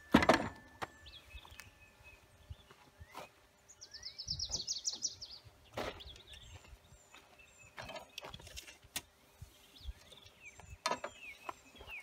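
Birds chirping and singing, with a quick trill about four seconds in, and a few scattered light knocks. Right at the start there is a loud thump as a wooden 4x4 timber is set down on the miter saw's table.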